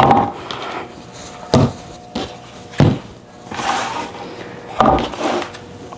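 A few sharp knocks and thumps, about four in six seconds, of household items being picked up and set down on a table, with some rustling between them.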